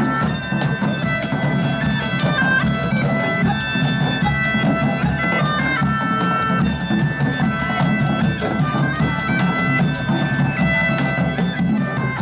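Medieval bagpipe playing a stepping melody over its steady drones, with a drum beating along underneath.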